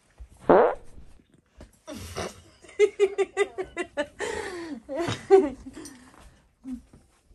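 A person laughing in a string of short, quick bursts, with a loud falling vocal sound about half a second in.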